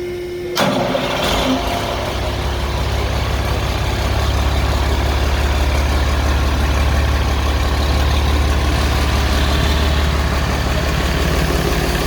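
Freshly rebuilt Mercedes-Benz OM366LA turbocharged, intercooled inline-six diesel engine idling smoothly and steadily. It comes in abruptly about half a second in.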